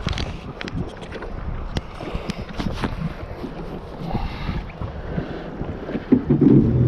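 Sea-Doo personal watercraft running on choppy water, with wind buffeting the microphone and irregular slaps of water against the hull. The engine comes up louder about six seconds in.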